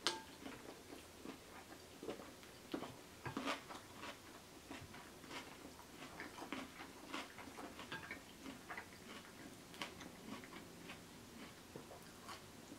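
Close-miked chewing of creamy bowtie pasta salad: soft, wet mouth clicks and smacks, several a second and irregular, with a sharper click right at the start.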